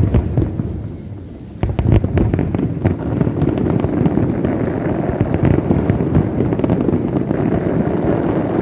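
Aerial fireworks going off in rapid, overlapping bangs, with a brief lull about a second in, then a dense continuous barrage.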